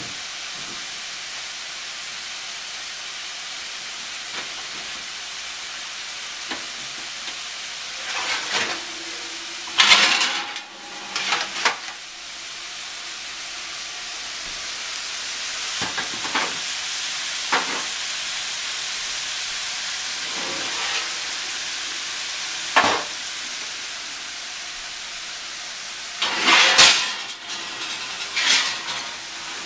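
Veal shanks and vegetables frying in a stainless steel sauté pan on a gas burner: a steady sizzle with scattered sharp crackles and pops, the loudest about a third of the way in and again near the end.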